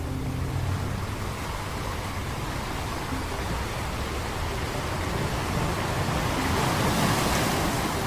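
Ocean waves washing onto a beach as a steady rushing surf, swelling to a louder break near the end.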